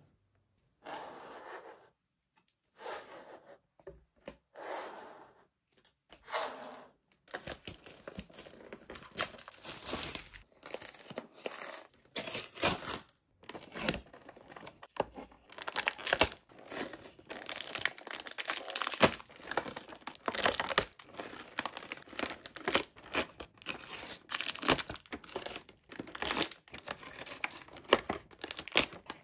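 Toy packaging being torn open and crinkled by hand: a few short rustles at first, then dense, continuous crackling and tearing from about seven seconds in.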